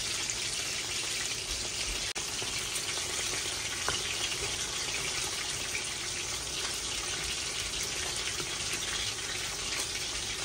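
Steady hiss of a pot of stewed red beans cooking on a gas stove while a wooden spoon stirs it, with a faint click or two.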